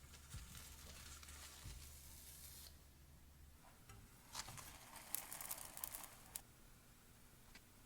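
Faint sizzling from flatbread in a frying pan, dying away after a couple of seconds. Then a few soft, scattered clicks and rustles of handling.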